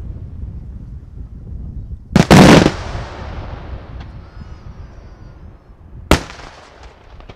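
Daytime aerial fireworks bursting. About two seconds in comes a very loud burst lasting half a second, which fades into a rumble. A second sharp bang follows about six seconds in.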